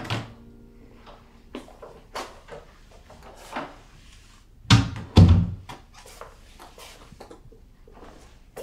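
A room door being handled and shut: short latch and handle clicks, then two heavy thuds about halfway through as the door closes, with smaller knocks and rustles around them.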